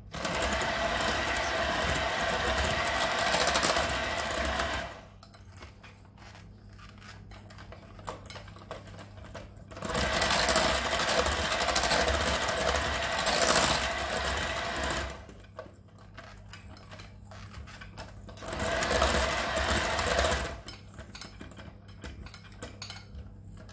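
Electric hand mixer beating cheesecake batter in a ceramic bowl. It runs in three bursts, about five seconds, five seconds and two seconds long, with quieter pauses between them that hold a few light knocks.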